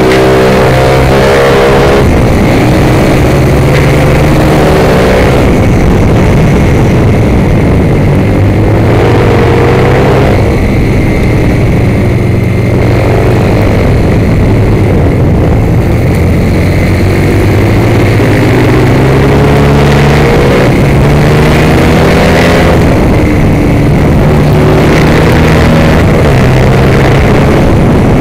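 Racing motorcycle engine heard from an onboard camera at speed on a track, repeatedly revving up and dropping back as it accelerates, shifts and slows for corners, over heavy wind noise on the microphone.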